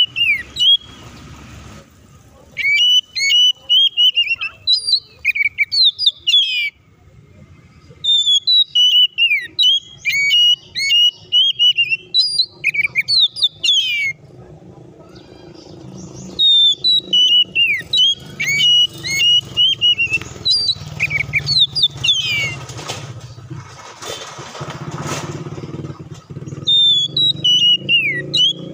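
An Oriental magpie-robin sings in bursts of rapid, varied whistles and chattering notes separated by short pauses. From about halfway in, a low engine drone runs underneath.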